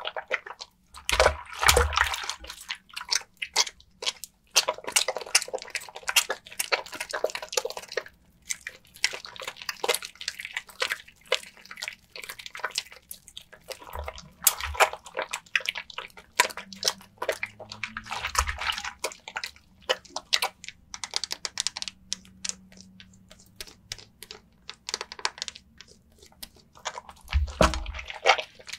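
Wet lathering of a soaked Nefis lavender soap bar: dense squishing and crackling of lather with drips of water, broken by a few dull thumps.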